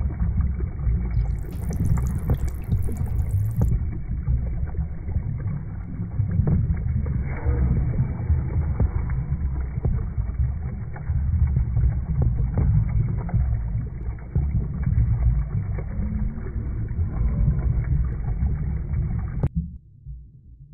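Muffled water sound as heard underwater: a dense, low rushing with bubbling and scattered faint clicks. Near the end it cuts off suddenly to a much quieter low throb.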